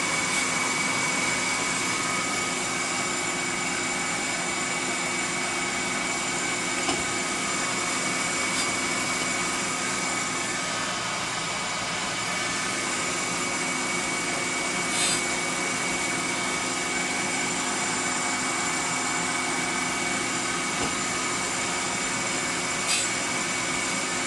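Grinder running with a steady whine while its wheel grinds the worn end teeth of an end mill, with a few light clicks.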